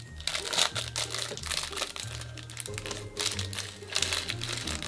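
Background music with a steady, stepping bass line, over irregular crinkling of a small plastic parts bag being handled and opened.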